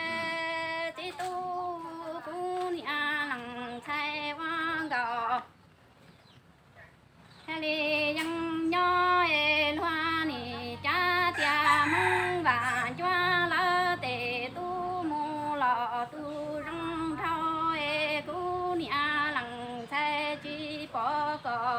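A woman singing Hmong kwv txhiaj, traditional sung poetry, in long wavering notes that slide between pitches. She breaks off for about two seconds a little over five seconds in, then sings on.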